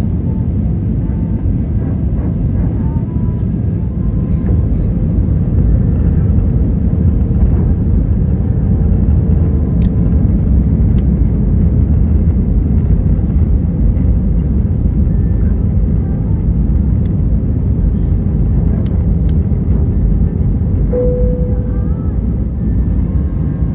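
Steady roar of airflow and engines inside the cabin of an Airbus A320 on approach with its flaps extended. Near the end comes a single short cabin chime, the 'ding' that tells the cabin crew the landing gear is down.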